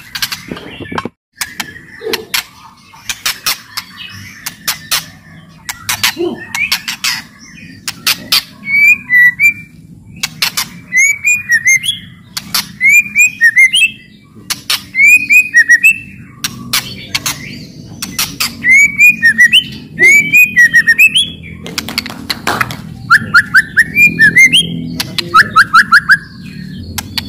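White-rumped shama (murai batu) singing in its agitated 'cetrekan' style: sharp, dry clicking rattles mixed with quick runs of short whistled notes. The whistled runs come in repeated bursts from about a third of the way in.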